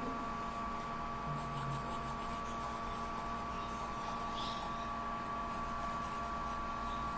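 A steady electrical hum with a faint high whine. Over it comes light scratching of a pen on paper as the stripes of a drawing are shaded in, clearest about one and a half to two and a half seconds in.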